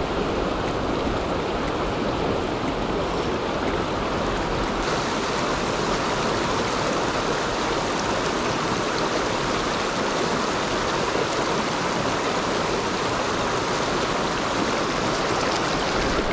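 River water flowing steadily, an even rush of current that grows brighter and hissier about five seconds in.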